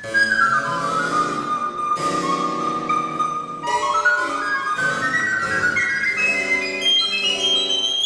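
Recorder playing a high line that slides down, holds, then climbs step by step, over lower accompanying notes that come in with sharp attacks.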